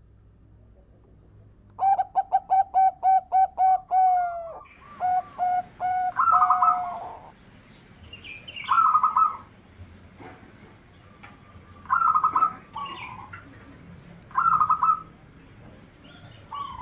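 Zebra dove (perkutut) calling: a fast run of about ten short cooing notes, then a few more notes and several shorter calls spaced a few seconds apart.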